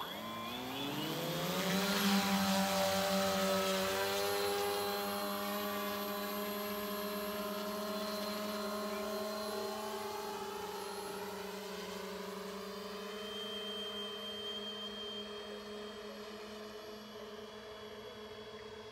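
Propellers and motors of a 1:5 scale VTOL model aircraft spooling up with a rising hum over about two seconds as it lifts off, then a steady propeller drone that slowly fades as the aircraft flies away.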